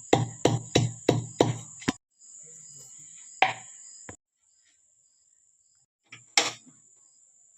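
Knife chopping on a cutting board, a steady run of sharp knocks about three a second for two seconds. Two more single knocks follow later, over a faint steady high hiss.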